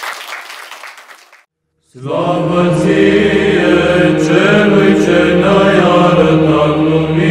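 Applause dying away in the first second and a half, a short silence, then choral church chant in Romanian sung over a steady held drone note.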